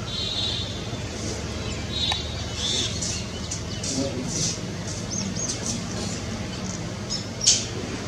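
Wild birds chirping and calling in a run of short, high calls, the loudest one near the end, over a steady low hum.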